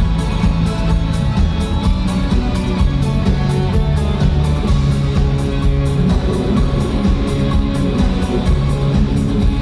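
Live pop-rock band playing an instrumental passage of the song, guitar over bass and a steady drum beat.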